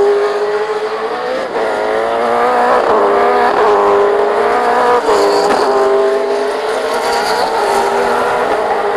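V8 Supercar's 5-litre V8 racing engine at full throttle, its pitch climbing in each gear and dropping sharply at each of several upshifts.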